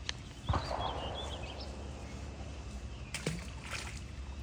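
A splash in water about half a second in, fading out over a second, while small birds chirp.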